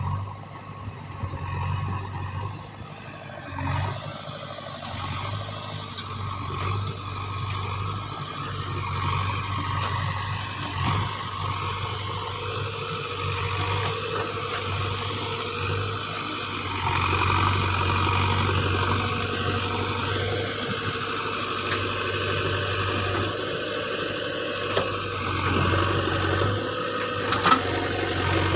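JCB backhoe loader's diesel engine running while digging soil, its note rising and falling with the work. There is a single sharp clank near the end.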